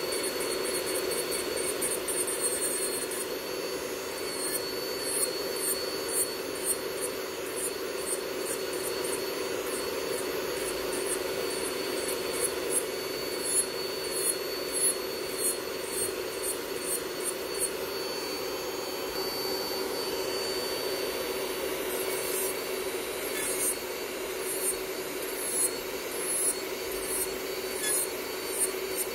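Electric nail drill with a ceramic bit running with a steady high whine as it grinds old polish off fingernails, with repeated short rasps where the bit bites the nail. Under it runs the steady hum of a nail dust extractor fan.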